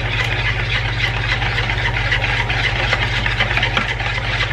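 Wire balloon whisk beating eggs, sour cream and melted butter in a plastic mixing bowl: a fast, steady rattle and scrape of the wires against the bowl, over a low steady hum.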